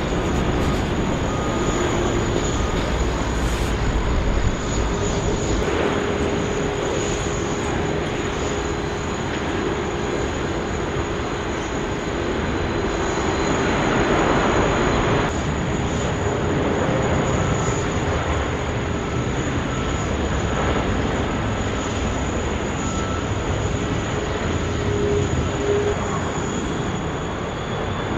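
Jet airliners landing one after another: a steady rush of engine and air noise with a faint engine whine, swelling slightly about halfway through.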